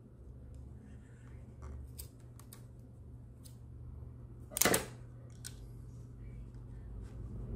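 One sharp scissors snip about two thirds of the way through, the loudest thing heard. Before it come a few light clicks of small plastic parts being handled.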